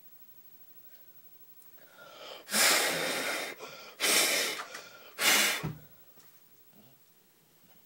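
Pug giving three loud, breathy snorts through its short nose, about a second apart.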